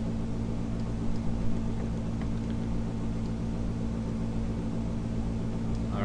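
Air conditioner running in the background: a steady low hum over an even hiss. A couple of faint clicks come about a second and a half in.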